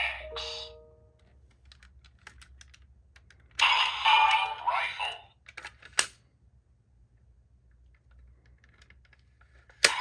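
Magnum Shooter 40X toy gun being folded from handgun to rifle mode: light plastic clicks from its moving parts, then, about three and a half seconds in, a burst of electronic sound effects from the toy's speaker. A sharp plastic snap follows about two seconds later, and another comes near the end.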